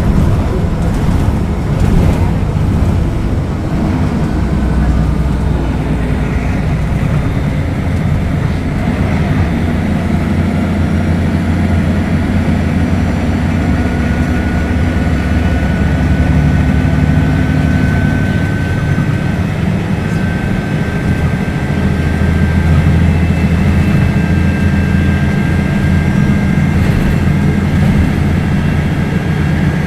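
Mercedes-Benz O500UDA bus engine running with a steady low drone. About halfway in, a thin high whine joins it and climbs slightly in pitch.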